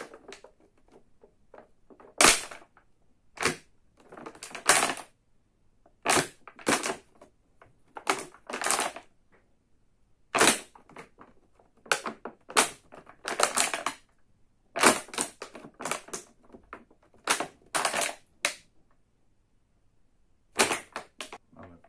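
Thin plastic water bottle crackling and popping as it is squeezed hard by hand and released over and over, its walls buckling in and springing back. It is compressing the air inside for the cloud-in-a-bottle experiment.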